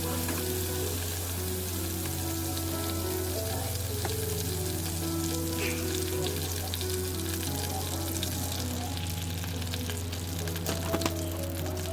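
Food sizzling in a hot pan, a steady crackling hiss with a few light clicks, under background music.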